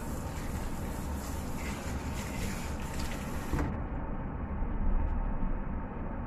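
Tap water running over raw meat in a mesh strainer as it is rinsed by hand in a stainless steel sink. The water stops about three and a half seconds in with a small knock, leaving a low rumble behind.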